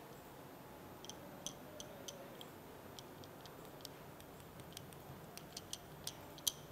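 Pen tip tapping on a smartphone's touchscreen: a run of light, irregular clicks, coming faster toward the end, with one sharper click near the end.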